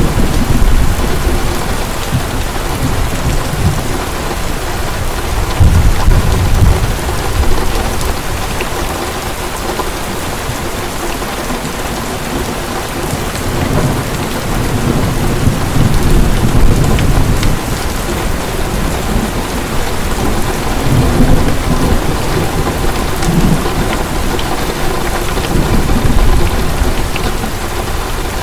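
Heavy rain falling steadily, with rolls of thunder rumbling low and swelling several times, the strongest about six seconds in and again in the middle.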